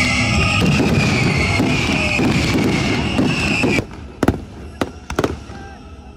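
Fireworks: a dense, continuous rush of sound that cuts off abruptly a little under four seconds in, followed by a few sharp, separate bangs of fireworks going off.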